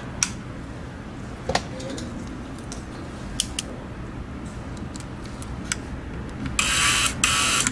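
Sharp little plastic clicks and taps as the Logitech G Pro Wireless mouse's shell and parts are handled, then two loud, short hissing bursts close together near the end.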